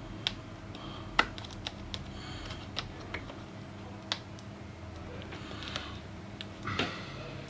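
Small, scattered plastic clicks and taps as fingers work a laptop display cable connector into the socket on the back of a new LED screen panel, with a slightly louder rustle near the end.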